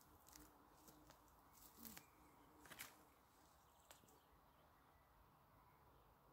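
Near silence, with faint rustling and scraping of a gloved hand digging a weed root out of garden soil, a few times in the first four seconds.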